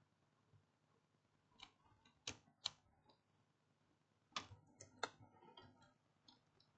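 A handful of sharp, light clicks and taps in near silence, loudest in two pairs around two and a half and four and a half seconds in, like small tools or probes handled on a workbench.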